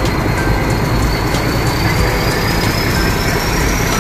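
Nilgiri Mountain Railway toy train running: a steady, loud rumble of the carriages on the track, with a thin high whine slowly rising in pitch from about a second in.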